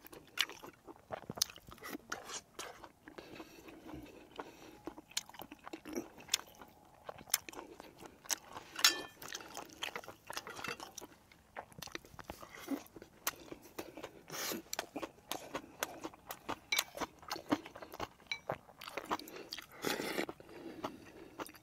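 A person eating close to the microphone: irregular chewing and crunching mouth sounds with many small wet clicks.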